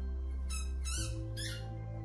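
Background music with steady held low notes. Over it come a few short, high squeaks, a quick cluster about half a second in and another near the end.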